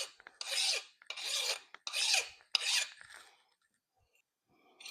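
A hand file rasping across metal stock clamped in a vise, in about four strokes a little under a second apart, stopping about three seconds in.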